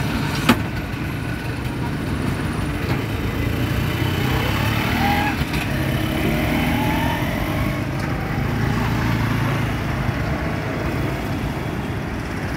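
Road traffic: motor vehicle engines running close by in a steady low drone, with one sharp click about half a second in.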